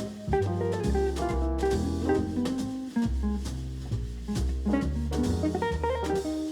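Instrumental jazz background music with a walking bass, guitar and a drum kit.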